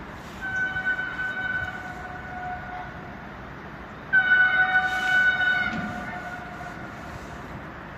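Two long blasts of a Siemens Vectron electric locomotive's horn, about four seconds apart, each a steady tone that fades away after a second or so.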